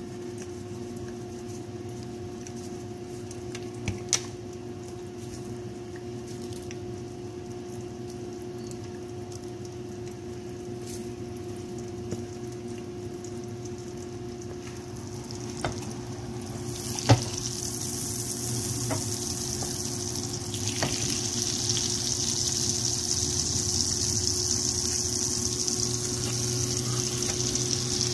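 A steady low hum with a few sharp knocks and taps, then, from about two-thirds of the way through, hot oil sizzling in a frying pan. The sizzle grows louder as the seasoned pork chop fries.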